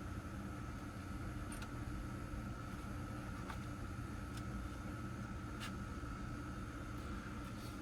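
Steady low hum and hiss with a faint constant high tone, broken by a few faint, short clicks.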